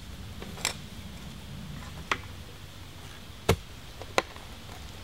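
Clamshell post hole digger jabbed into the dirt, four sharp strikes at uneven intervals, the one about three and a half seconds in the loudest.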